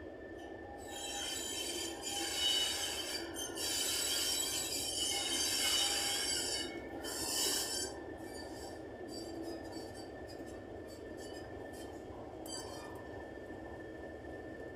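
Class 31 diesel locomotive rolling slowly into the platform, its wheel flanges squealing high and loud on the rails from about a second in until about eight seconds, then only in brief flickers. The locomotive's engine runs steadily underneath.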